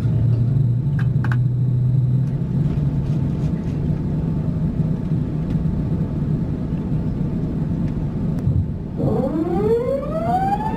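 Steady low hum inside an Airbus A380 cabin. About nine seconds in, a rising whine with several overtones climbs and levels off into a steady high tone: a Rolls-Royce Trent 900 engine spooling up as it starts.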